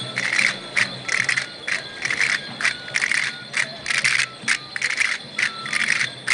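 A troupe of dancers playing wooden castanets together, clattering in quick rolls and strokes that repeat in a steady dance rhythm, about two to three bursts a second.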